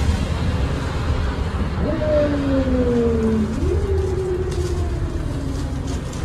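Cabin sound of a 2001 MAN 12.220 diesel bus on the move: a steady low engine and road rumble. About two seconds in, a whining tone jumps up and slides slowly down, then jumps again and slides down lower.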